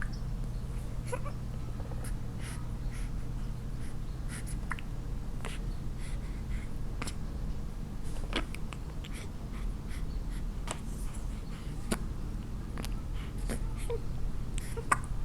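Hiccups of a three-week-old, short sharp catches repeating about once a second, over a steady low hum.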